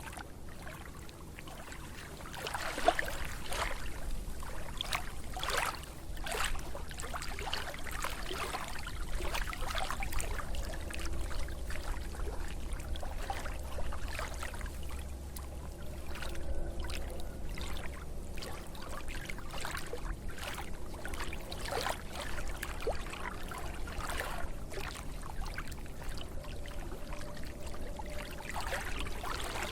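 Water splashing and trickling in irregular spurts, with a sharper splash about three seconds in, over a steady low rumble.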